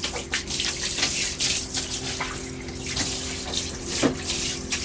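Water spraying from a handheld shower head, hissing steadily as it rinses the floor of a small toilet compartment, with a steady low hum beneath.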